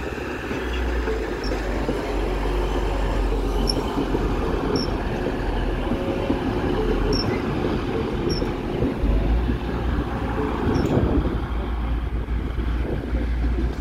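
TransPennine Express Class 185 diesel multiple unit passing close by: a steady rumble of its diesel engines and its wheels running on the rails.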